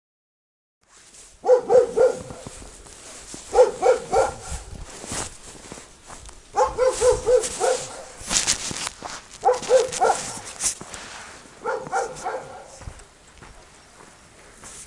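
A dog barking in quick runs of three or four barks, a run every two to three seconds. Crunching footsteps in snow run underneath.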